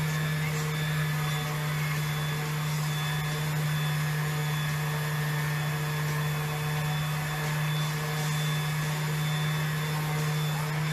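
Electric power sander running steadily on wood: a constant motor hum under a dense sanding hiss.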